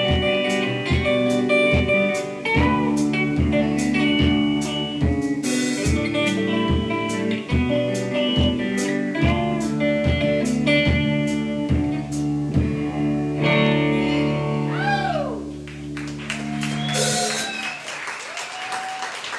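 Live band playing guitar-led music over a steady drum beat, ending about two seconds before the close, followed by audience applause.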